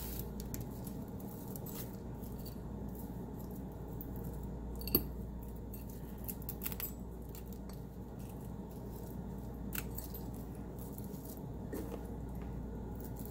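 Dried lavender sprigs rustling and snapping faintly as they are handled and pushed into a muslin tea bag, with one sharper click about five seconds in, over a low steady hum.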